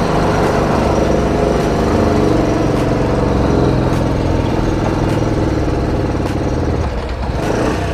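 Small single-cylinder Bajaj motorcycle engine running steadily as the bike pulls up a sloping street, with a slight dip in engine note near the end.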